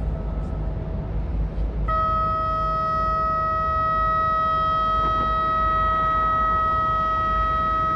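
A horn sounds one long steady note that fades briefly, then comes back louder about two seconds in and is held without a break. A low rumble runs underneath.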